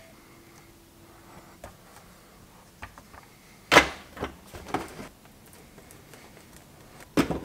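A few scattered knocks and clicks of plastic door-panel pieces being handled and pressed together on a workbench. The loudest knocks come about four seconds in and again near the end.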